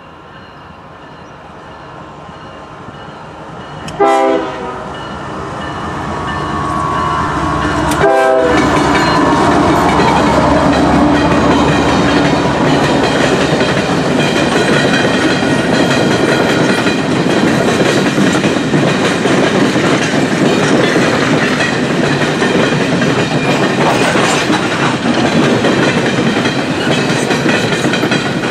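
GE ES44AC diesel-electric locomotive approaching, its engine growing louder, and sounding two short horn blasts about four seconds apart. As it passes, this gives way to the steady rumble and clatter of a long string of coal hopper cars' wheels on the rails.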